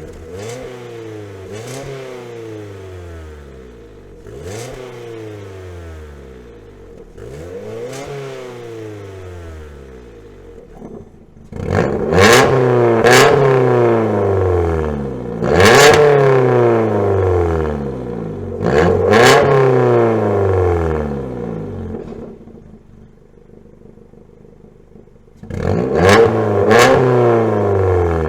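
Ford Fiesta MK7 engine revved repeatedly through a Guerrilla Bypass cut-out exhaust: short blips, each rising fast and falling back to idle. The first few revs are moderate, then from about twelve seconds in the revs are much louder. The engine idles briefly before two more loud blips near the end.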